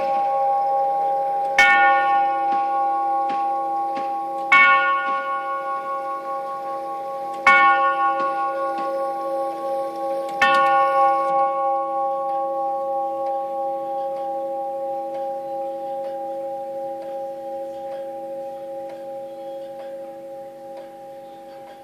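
Winterhalder/Colonial five-tube grandmother clock striking the hour on its tubular chimes: four identical strokes about three seconds apart, each ringing on. After the last stroke, about ten seconds in, the tubes fade slowly while the clock's ticking carries on underneath.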